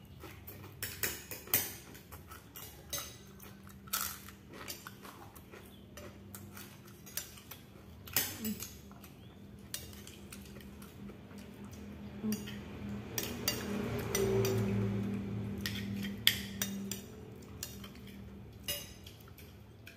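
Spoons clinking and scraping against plates and bowls as two people eat, in irregular sharp clicks. Partway through, a low hum swells up and then fades.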